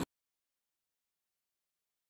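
Silence: the sound track is cut to nothing.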